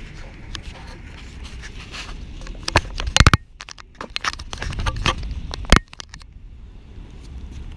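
Handling noise from a small camera being moved and set down on a tennis court's asphalt surface: scraping, rustling and clicking, with two loud knocks, one about three seconds in and one just before six seconds. After that only a low steady rumble remains.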